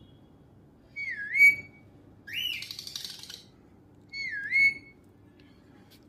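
Pet parrot whistling: a clear swooping whistle that dips and rises, then a harsher rising whistle that breaks into chatter, then the same swooping whistle again.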